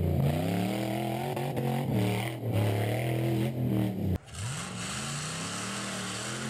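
Off-road buggy's engine revving hard in repeated bursts, its pitch rising and falling under load on a steep dirt climb. It breaks off abruptly about four seconds in, then the engine is heard again more quietly, revving up.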